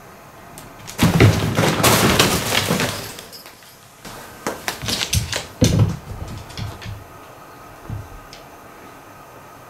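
Fabric cat tunnel rustling and crinkling as a cat plays against and inside it: a loud rush of crinkling for about two seconds, then a string of shorter rustles and knocks, and one last soft one near the end.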